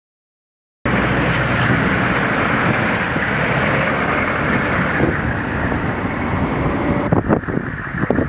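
Military Humvee driving along a snow-covered road: a steady rush of engine and tyres on slush that starts abruptly just under a second in. Near the end it gives way to a quieter stretch with scattered crackles.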